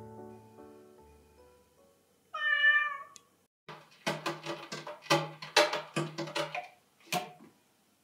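Soft background music fades out, then a cat meows once. A quick run of short, sharp sounds follows for about three and a half seconds.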